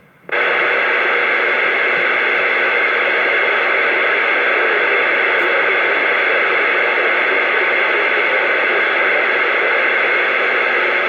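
CB radio receiver putting out loud, steady static hiss with no voice on the channel, coming on suddenly a moment after the start.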